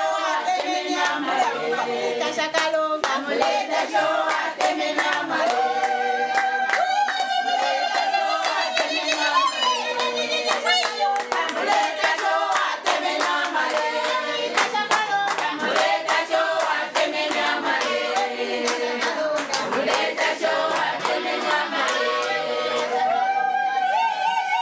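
Women singing a traditional Zambian song together, accompanied by steady hand clapping from the group.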